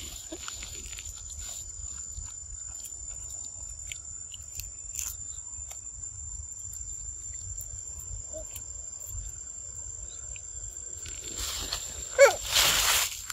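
Insects giving a steady high-pitched drone, one unbroken tone. Near the end a sudden loud burst of hiss with a few falling squeaks cuts in briefly.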